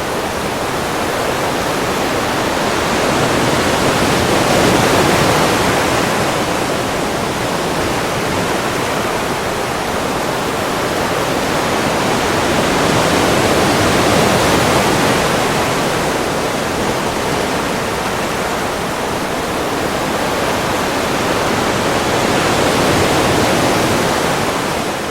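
Ocean waves washing ashore: a continuous surf rush that swells and eases in slow surges, about three in the span, each several seconds long.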